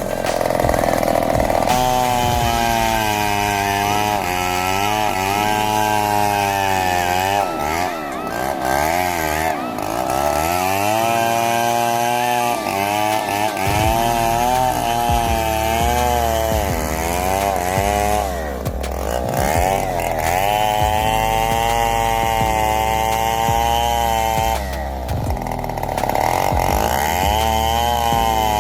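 Petrol chainsaw running at full throttle while cutting wood. Its engine pitch sags repeatedly as the chain bogs in the cut, then climbs back.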